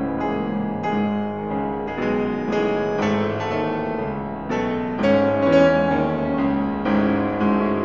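Background piano music, single notes and chords struck at a moderate pace and left to ring.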